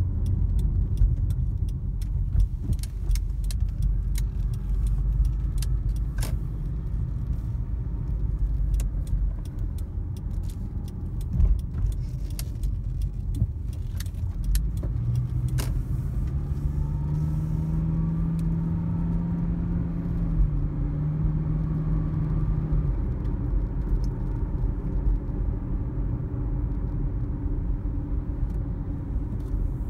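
Car cabin noise while driving: steady low road and engine rumble, with small rattling clicks through the first half. About halfway through, the engine note rises as the car speeds up, then drops back into the road noise.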